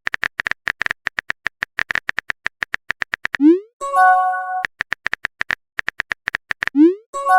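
Rapid, uneven phone-keyboard typing clicks, broken about halfway through and again near the end by a message sound: a quick rising swoop followed by a short chime of a few steady tones.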